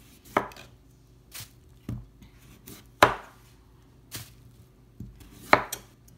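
Chef's knife slicing the tough outer skin off a Korean radish in downward strokes, each ending in a sharp knock on a bamboo cutting board. There are about five strokes, the loudest about three seconds in and again near the end.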